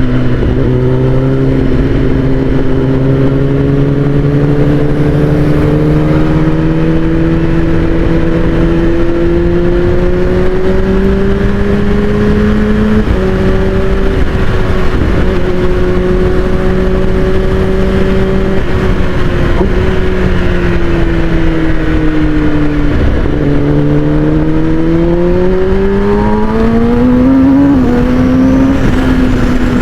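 Kawasaki Ninja ZX-10R inline-four running through an Akrapovic full-system exhaust while being ridden. The engine note climbs slowly, steps down about halfway through, then dips and rises sharply under acceleration near the end.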